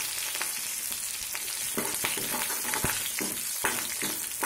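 Chopped green chillies and whole spices (panch phoran, bay leaf, black peppercorns) sizzling in hot oil in a metal kadhai: the tadka, or tempering, stage of a curry. Over the steady sizzle, a steel ladle stirs and scrapes against the pan in irregular short clicks.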